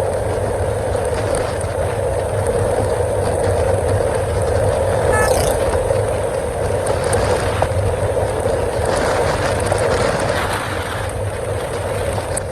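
Yamaha R15 motorcycle's single-cylinder engine running steadily with no revving, as if held at a constant speed.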